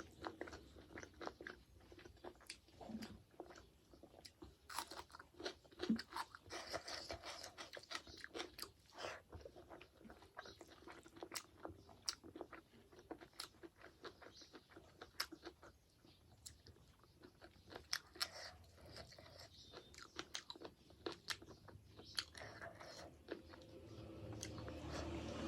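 A person chewing and biting food close to the microphone: soft, irregular wet mouth clicks and crunches, with no steady rhythm.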